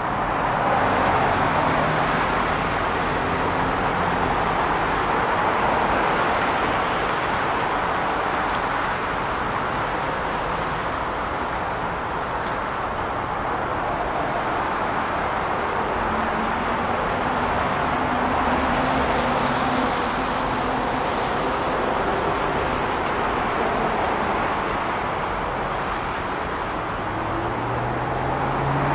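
Dense rush-hour traffic on a multi-lane expressway: a steady, even noise of tyres and engines with the low hum of individual vehicles drifting through. Near the end, a nearby vehicle's engine hum falls in pitch as it passes.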